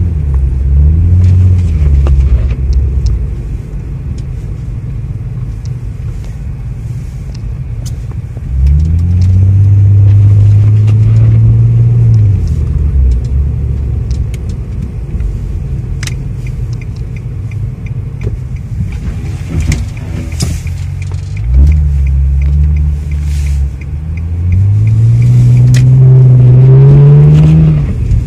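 Infiniti G35x's 3.5-litre V6 engine heard from inside the cabin, pulling away several times with its note rising, then easing back to a low drone. There are a few light clicks in the middle.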